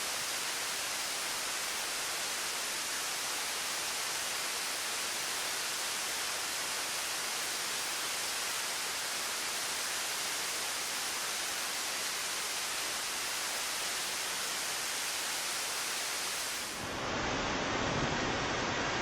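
Waterfall rushing steadily, an even hiss of falling water. About 17 seconds in it cuts to another recording in which wind buffets the microphone over the water, with a low rumble and a sharp gust near the end.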